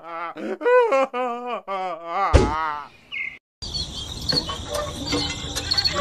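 A voice with a strong wobble in pitch, in short phrases, stopping about two seconds in after one sharp sudden sound; after a brief silence, a hissy outdoor background with repeated high bird chirps.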